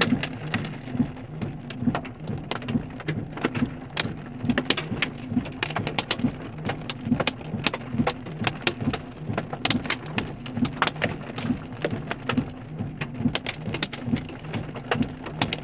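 Rain and hail pelting the car's roof and windows, heard from inside the car: a dense, irregular patter of sharp ticks and pings over a low, steady drumming.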